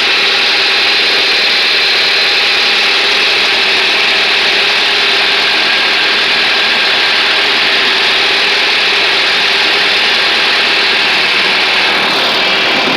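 Old John Deere tractor engine running steadily.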